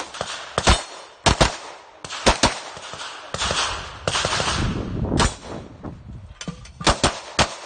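Glock 17 Gen 4 9mm pistol fired rapidly, about nine shots in quick pairs and singles. A stretch of noise with no shots fills a gap of about two seconds in the middle.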